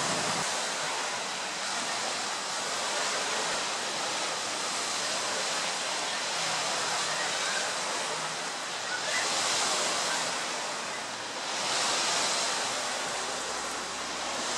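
Sea surf and wind heard from the shore: a steady wash of noise that swells twice, about nine and twelve seconds in.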